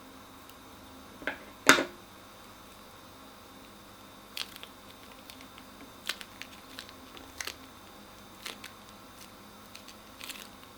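Crunchy slime being squeezed and handled, giving scattered sharp crackles and pops, the loudest about two seconds in and smaller ones every second or two after.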